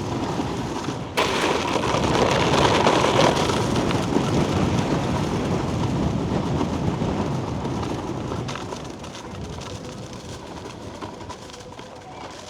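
Snowboard sliding and scraping over icy, slushy snow: a loud noisy rush that starts suddenly about a second in, then slowly fades.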